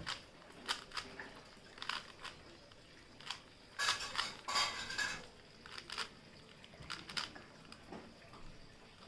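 Plastic Rubik's cube being turned quickly by hand, its layers clicking and clattering in irregular bursts, loudest and busiest about four to five seconds in.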